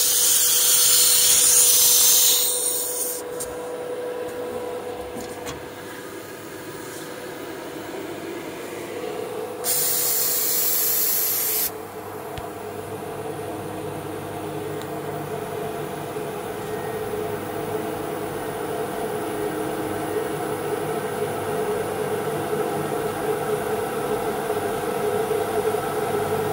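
CNC router's automatic tool changer working through a tool change: compressed air hisses loudly from the spindle for about two and a half seconds at the start, and again for about two seconds some ten seconds in. A steady machine hum runs underneath.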